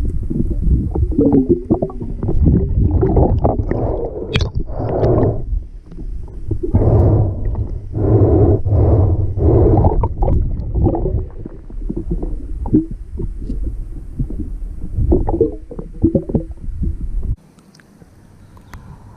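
Muffled underwater water noise picked up by a submerged camera: irregular rumbling and gurgling surges of water moving. It drops off suddenly near the end.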